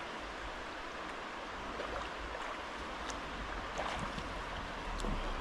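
Fast-flowing river running steadily: a continuous rush of water, with a few faint short splashes.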